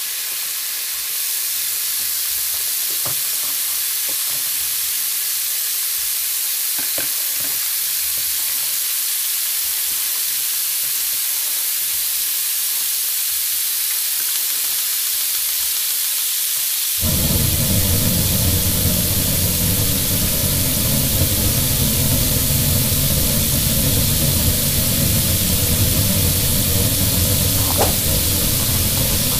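Steady, loud sizzling hiss like food frying on a grill, with a few faint plastic clicks of toy food being moved. About two-thirds of the way in, a low rumble joins the hiss.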